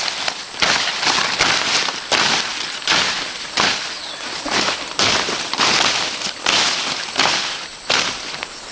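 A hand tool digging into sand and gravel, with a sharp scraping stroke about every three-quarters of a second.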